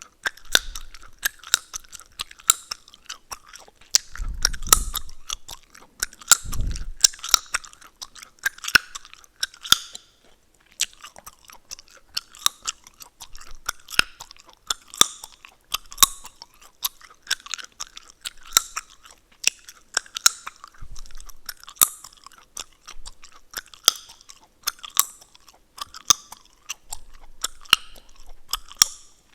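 Close-miked gum chewing: a steady run of wet chews with sharp crackling snaps of the gum, with a short pause about ten seconds in and a couple of brief low thuds early on.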